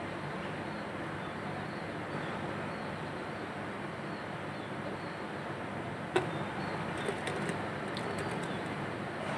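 Steady outdoor background noise with faint bird calls. A single sharp click about six seconds in, then a few lighter clicks.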